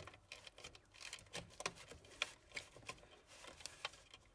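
Faint, irregular small clicks and rattles of plastic wiring connectors being handled and worked loose from a power supply circuit board.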